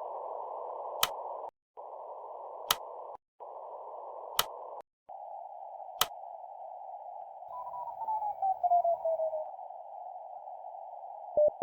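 Radio-style hiss that drops out briefly a few times, with a sharp click about every second and a half. Midway a whistle slides down in pitch over about two seconds. Near the end the first short beeps of a Morse code sidetone begin, the dits of the letter H sent at 10 wpm.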